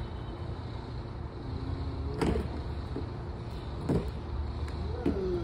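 Footsteps on wooden deck boards over a steady low rumble, with two louder knocks about a second and a half apart.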